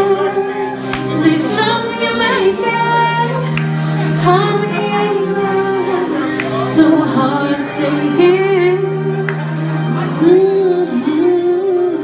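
A woman singing live into a microphone over a backing track with sustained bass notes.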